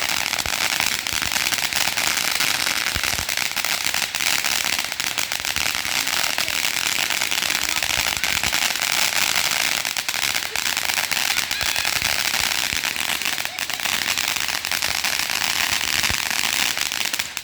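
Consumer ground fireworks crackling: a dense, steady spray of tiny rapid pops that keeps up without a break and stops suddenly at the very end.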